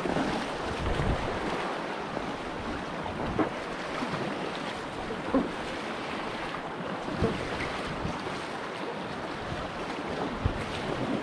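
Fast river water rushing through a rapid around a packraft, with a paddle blade splashing into the water in short strokes roughly every two seconds.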